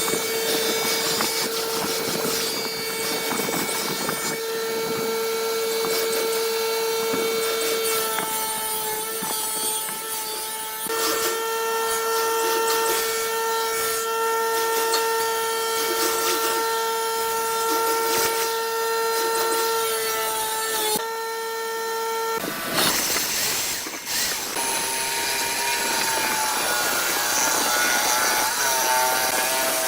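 Woodworking power tool motor running with a steady whine, its pitch stepping slightly a few times. About two-thirds through it stops briefly, a short burst of rough noise follows, and a different tool's whine with a wavering pitch takes over.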